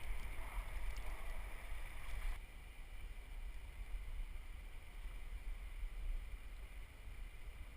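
Muffled rumble of river water and wind buffeting a GoPro's waterproof housing on a raft oar, with a steady rushing hiss over it that drops away suddenly about two and a half seconds in.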